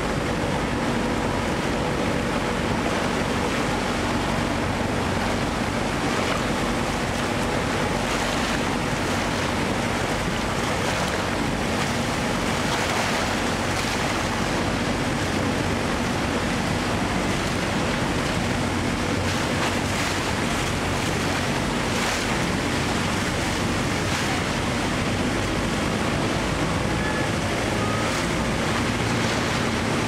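Rhine Falls rushing: a loud, unbroken roar of falling and churning water, with wind buffeting the microphone now and then and a low steady hum underneath.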